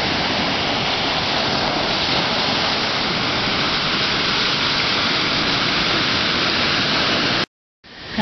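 Ocean surf breaking and washing up a sandy beach, a steady loud rush of waves and foam. It cuts off suddenly near the end.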